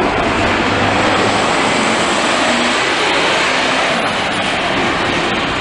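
City bus driving past and pulling away, its engine and road noise a loud, steady rush.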